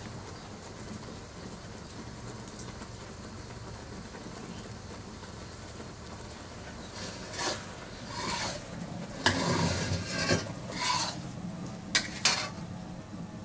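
Bamboo satay skewers of grilled chicken being set down on a wooden plate of mashed potato: a run of short scrapes and clatters over a steady low hiss, starting about halfway through, with two sharp clicks near the end.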